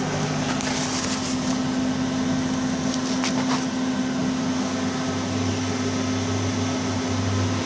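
Steady machine hum with a droning tone, with a few light handling knocks near the start and about three seconds in; a lower hum joins about five seconds in.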